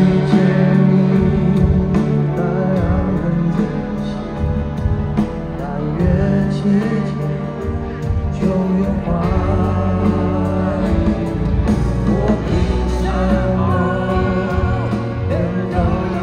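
Live pop-rock band music with men singing, amplified through a large concert sound system.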